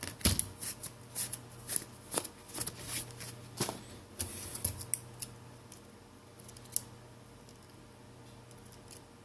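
Rapid small plastic clicks, taps and scrapes from a smartphone being handled, with one last click about seven seconds in, over a faint steady hum.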